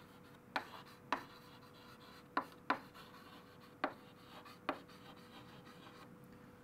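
Chalk writing on a chalkboard: six short, sharp chalk taps and strokes spread unevenly over about five seconds as words are written, over a faint steady hum.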